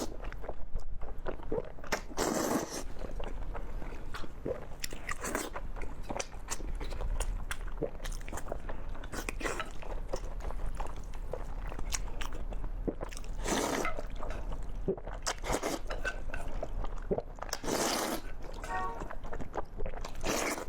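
Close-miked eating: a loud crunchy bite every few seconds, with chewing in between.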